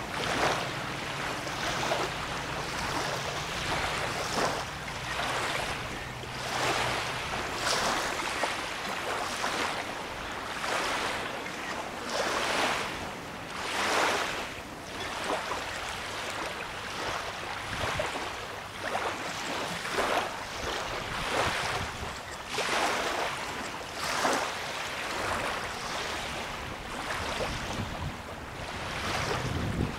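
Small lake waves lapping at the shore: a hissing wash that swells and fades every second or two. A faint low hum sounds under it for the first few seconds.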